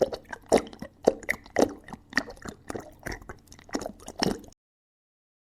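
A run of short wet taps and clicks, about two a second, cutting off suddenly into silence a little past four seconds in.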